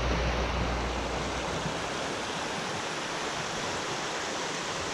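Creek water running over a shallow rocky stretch: a steady rushing hiss, with a low rumble under it for about the first second and a half.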